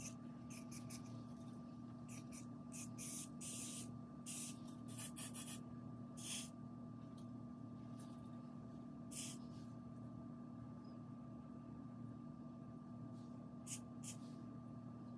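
Aerosol hair spray hissing in short bursts, about eight in the first six seconds, one more a few seconds later and two quick ones near the end, sprayed onto a lace-front wig's hairline to glue the lace down. A steady low hum runs underneath.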